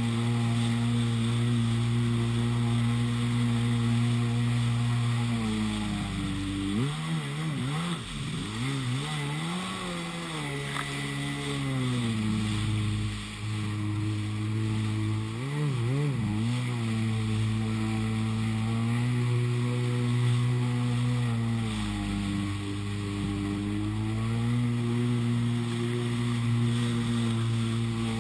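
Yamaha Wave Blaster 701 jet ski's two-stroke twin engine running hard at a steady high pitch. The revs drop and wobble up and down twice, around a quarter of the way in and again about halfway, then settle back to a steady note.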